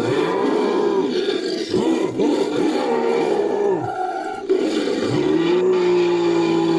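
Big-cat creature sound effect layered from lion and other roars: a run of short, overlapping roars and growls, then one long roar held at a steady pitch from about five seconds in.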